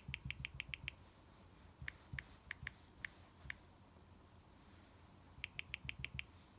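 Smartphone on-screen keyboard giving a short click with each keypress, with the soft tap of a fingertip on the screen. A fast run of about eight clicks deletes text, six slower clicks type a word about two seconds in, and another fast run of about seven deletes it again near the end.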